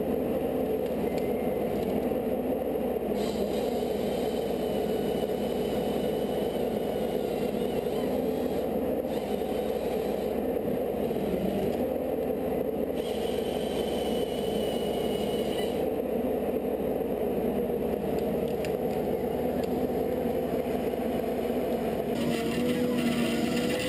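A machine's engine running steadily at one pitch, with a faint high whine coming and going above it.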